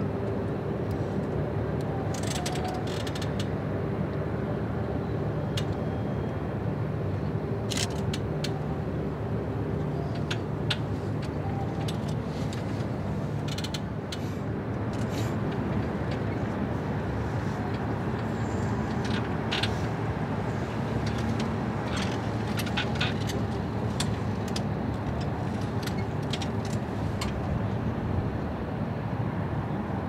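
Steady low mechanical drone with a faint hum running through it, broken by scattered short clicks and taps.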